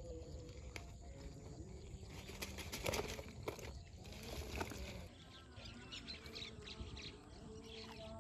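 Faint outdoor ambience with a few scattered clicks and light rustles.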